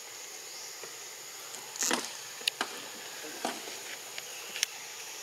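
A few sharp clicks and light snaps, the loudest about two seconds in, over a steady high-pitched insect drone.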